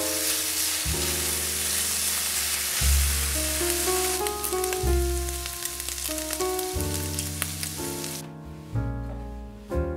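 Diced smoked bacon sizzling as it fries in a nonstick pan, a steady hiss that cuts off abruptly about eight seconds in. Piano background music plays throughout.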